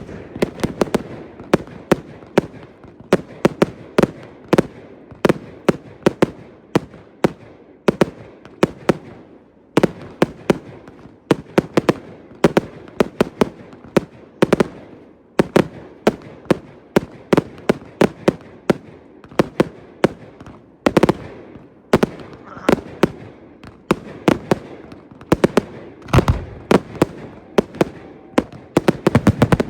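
Fireworks going off in a continuous barrage: many sharp bangs and cracks in quick, irregular succession, several a second.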